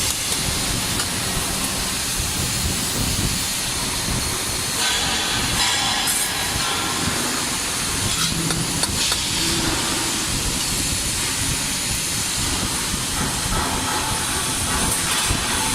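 Omega TIG 350T welder in use: a steady hiss with small changes in level.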